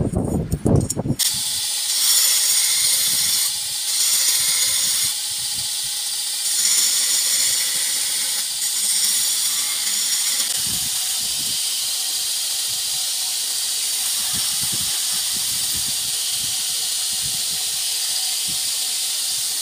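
About a second of quick metallic knocks, then a belt grinder grinding a forged 80CrV2 high-carbon steel knife blade with a steady high hiss. The grinding swells and eases several times over the first ten seconds or so as the blade is pressed to the belt in passes, then holds even.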